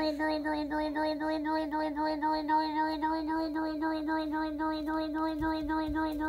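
Toddler holding one long steady "ahh" while tapping her hand against her mouth, which breaks it into a warbling wa-wa-wa at about four pulses a second.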